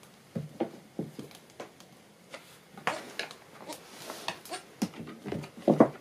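Scattered light taps, scuffs and sniffs from a dog nosing around a newborn goat kid on wooden floorboards, with a louder clatter of knocks near the end as the animals move about.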